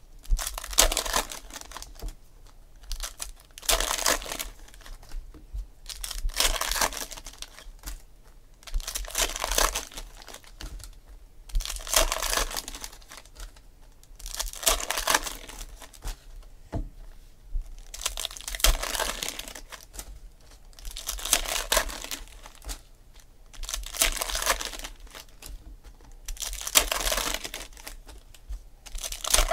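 Foil trading-card pack wrappers being torn open and crinkled, one after another, with a crinkling burst every two to three seconds.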